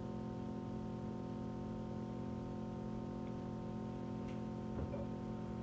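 A steady hum made of several held tones, unchanging throughout, with a faint click about five seconds in.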